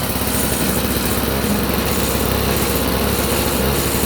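Toro CCR 1000E snowblower's 3-horsepower two-stroke engine running steadily.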